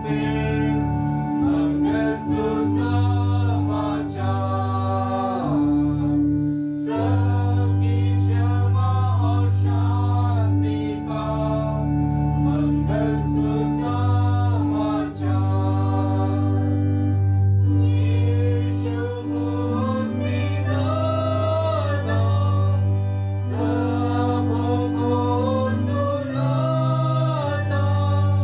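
A hymn sung by several voices with instrumental accompaniment, in long held notes over a steady bass line.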